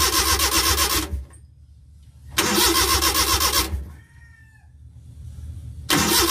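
Starter cranking the Suzuki Multicab's F5A three-cylinder engine in three bursts of about a second and a half each, the engine turning over without catching. It is being cranked to check that the ignition coil delivers spark.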